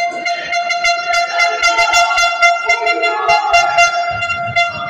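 A spectator's horn held on one steady, high, shrill note for several seconds, over fast, irregular sharp clicks from the crowd.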